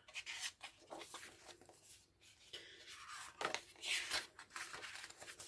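Pages of an album's lyric book being turned by hand: faint paper rustling and small clicks, with one louder swish of a page turning about three and a half seconds in.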